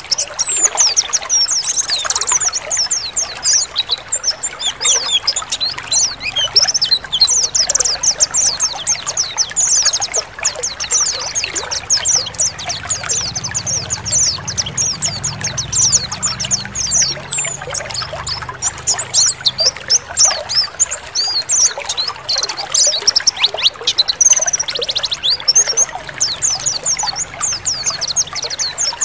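A group of white-eyes (pleci) twittering in a dense run of fast, high chirps over a steady trickle of running water.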